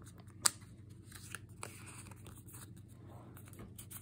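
A trading card being slid into a plastic sleeve by hand: faint plastic scraping and rustling, with a sharp tick about half a second in and a few softer ticks after.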